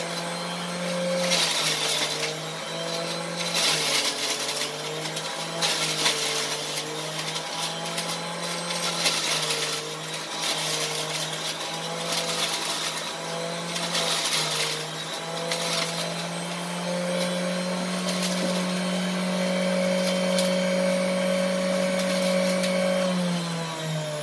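Electric centrifugal juicer running, its motor hum dipping in pitch each time grapes are pushed down the chute, with a burst of shredding and spraying about every two seconds as the grapes are juiced. Later it runs unloaded at a steady higher pitch, then slows down near the end.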